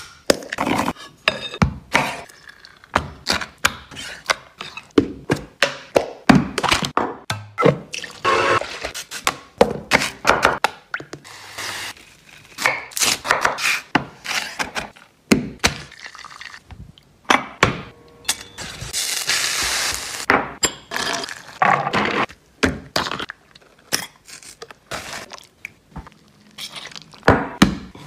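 Close-miked food preparation: a quick, uneven run of sharp knocks, taps and cracks from hands, utensils and packaging on a wooden chopping board and worktop. About two-thirds of the way through comes a brief rushing noise.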